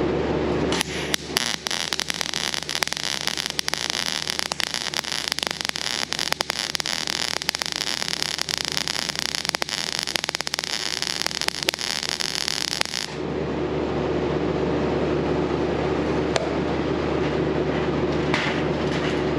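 MIG welding arc crackling from a Miller CP300 with an S-22A wire feeder, set to about 18 volts and 150 inches per minute, running one continuous bead on 20-gauge sheet metal. The arc strikes about a second in, crackles steadily for about twelve seconds and cuts off suddenly. A steady hum is heard before and after.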